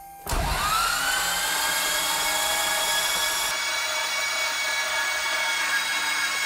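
Electric starter cranking a Piper Saratoga's six-cylinder Lycoming engine with the spark plugs out and the ignition off, spinning the propeller without firing. It comes in suddenly with a whine that rises as it spins up, then holds steady. This is a dry crank to bring up oil pressure after fresh oil and a new filter.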